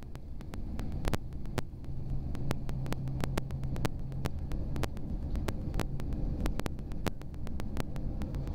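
CTA 2600-series rapid-transit car running at speed: a steady rumble with a low hum through the first half, and rapid irregular clicking, several clicks a second.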